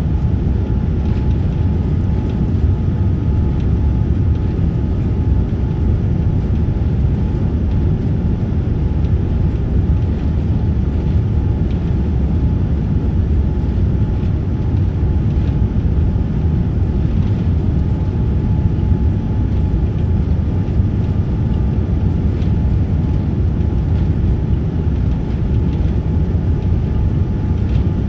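Steady cabin rumble of a Boeing 787-9 airliner on final approach, with landing gear down and flaps extended: low, even airflow and engine noise heard from inside the cabin, with a faint steady whine over it.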